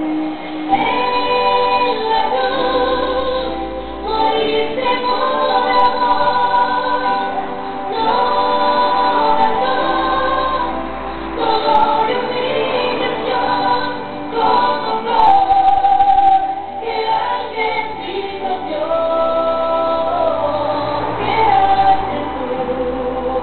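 Background music: a choir singing a slow gospel-style Christian song, with long held notes.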